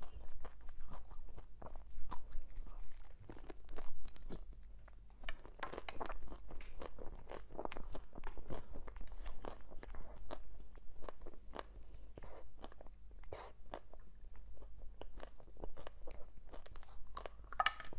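Close-up crunching and chewing of frozen chocolate-coated ice cream bars, the hard chocolate shell cracking in many quick, irregular crackles, with a louder bite near the end.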